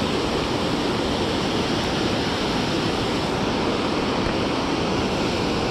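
Steady rush of river water pouring over a low dam and churning in the whitewater just below it.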